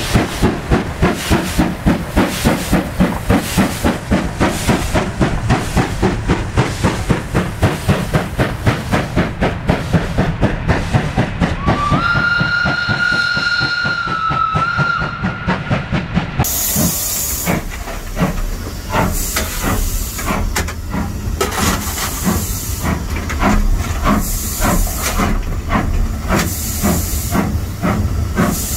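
SJ class B steam locomotive No. 1323 starting away with a train: a quick, even beat of exhaust chuffs, about two or three a second. Near the middle the steam whistle sounds one long steady note for about four seconds, and after it a loud hiss of steam runs on under fainter chuffs.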